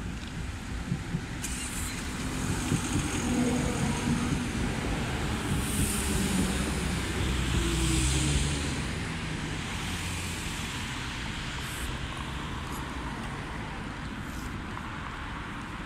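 Low-floor electric tram approaching and passing close by as it pulls into a stop: running noise of wheels on rails builds to a peak about eight seconds in, with a drive whine that drops in pitch as it brakes, then settles to a steady hum as the tram stands.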